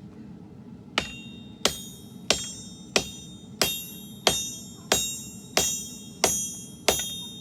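Hand hammer striking hot steel on an anvil in forging, ten evenly paced blows about one and a half a second, starting about a second in, each leaving a bright metallic ring.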